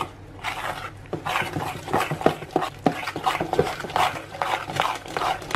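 Metal fork mixing thick chocolate chip cookie dough in a glass bowl, scraping and clicking against the glass in quick strokes, about three a second.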